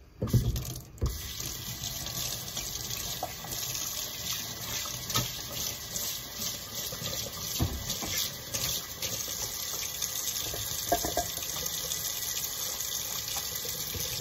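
Pull-down kitchen faucet running in a steady hiss into the sink as hands are washed under it, coming on about a second in after a short thump.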